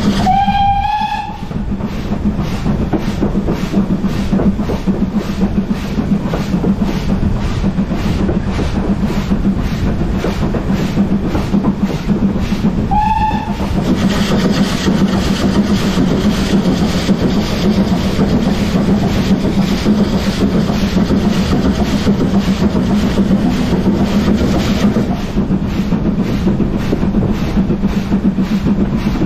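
Steam locomotive 80097, a BR Standard Class 4 tank engine, running steadily, heard from the cab, with a regular beat about twice a second. Its steam whistle gives two short blasts, one right at the start and one about halfway through.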